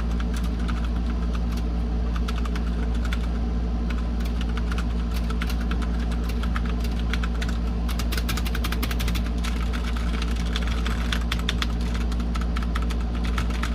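Computer keyboard being typed on: rapid key clicks coming in quick runs, busiest in the second half, over a steady low hum.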